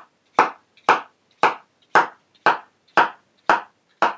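Kitchen knife chopping a peeled cucumber into thick slices on a wooden cutting board, each cut ending in a knock on the board. The strokes come at an even pace, about two a second, eight cuts in all.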